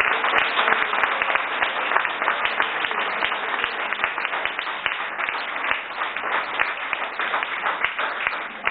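Audience applause, many hands clapping together, slowly dying down toward the end.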